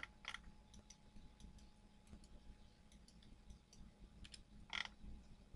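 Near silence with faint computer mouse clicks scattered at irregular intervals, and one brief soft noise near the end.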